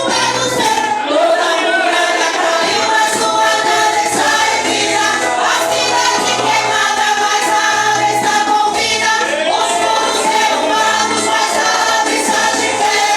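A group of women singing a Portuguese gospel song in unison over a recorded backing track.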